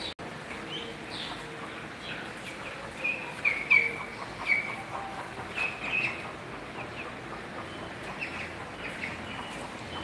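Poultry calling: a series of short, high chirps, some dropping in pitch, loudest and most frequent between about three and six and a half seconds in.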